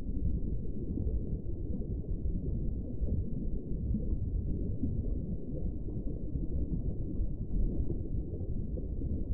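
Steady, muffled low rumbling noise with no distinct tones or events.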